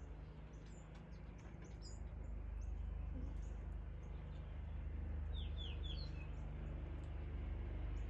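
Small songbirds chirping: scattered short high chips, then three quick falling whistled notes about five seconds in, over a steady low rumble.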